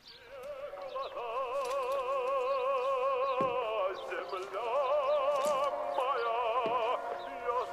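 Music with operatic-style singing: long, high held notes with wide vibrato, in a few long phrases.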